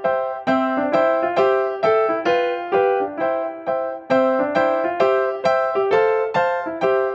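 Background music: a light piano melody, single notes struck at an even pace, each ringing and fading.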